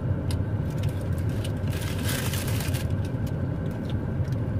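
Steady low rumble of a car idling with its air conditioning running, heard inside the cabin, with scattered small clicks and paper-wrapper crinkles and a short rustle about two seconds in.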